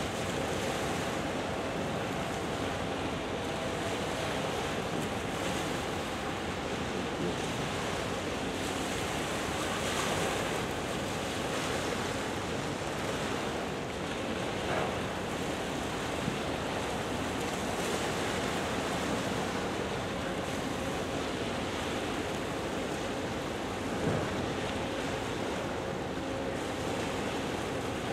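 Steady wind and water noise, with a faint steady hum under it and a single small knock near the end.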